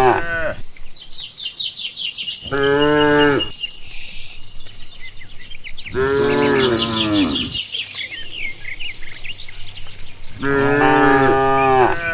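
Cows mooing in the herd: the end of one long moo, then three more long, drawn-out moos a few seconds apart.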